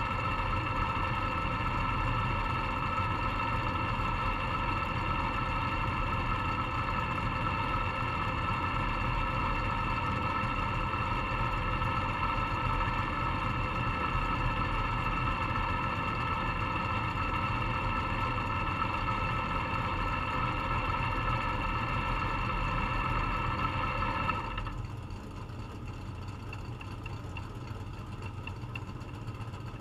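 Race car engine idling steadily, heard from inside the cockpit of a dirt-track modified. About 24 seconds in, a steady higher whine in the sound cuts off suddenly and the level drops, leaving a quieter low engine rumble.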